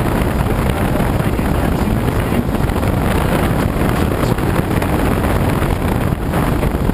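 Glider in flight: a steady, deep rush of airflow over the canopy and fuselage, heard inside the cockpit as wind noise on the microphone.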